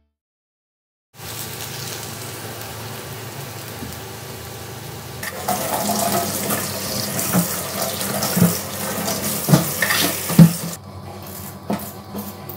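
Kitchen tap water running into a stainless steel sink, starting about a second in, while potatoes are washed by hand under the stream, with several knocks against the sink. Near the end the water shuts off and a vegetable peeler starts scraping the potato skin in short strokes.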